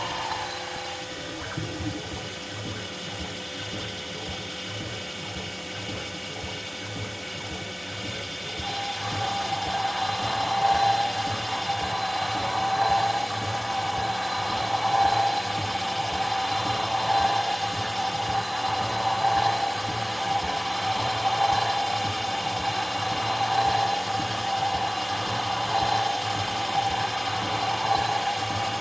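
CNC-converted PM-25MV benchtop milling machine running a roughing pass: steady spindle and axis-drive tones, with the cutter biting louder from about 8 seconds in and the cutting sound swelling and easing every couple of seconds as the tool sweeps back and forth.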